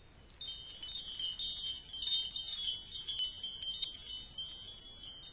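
A bright shimmer of many overlapping high tinkling chime notes, like a wind-chime sparkle, used as a channel logo sting. It starts just after the opening.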